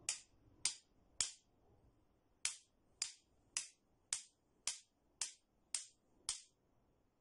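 Two metal spoons clicked together in a steady beat of a little under two strokes a second, playing a 3/4 rhythm exercise of quarter-note strokes. The beat skips once about two seconds in and again near the end, for one-beat rests.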